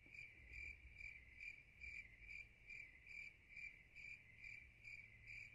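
Faint cricket chirping, a steady high trill pulsing about three times a second that cuts in and out abruptly: the comic 'crickets' sound effect marking an awkward silence.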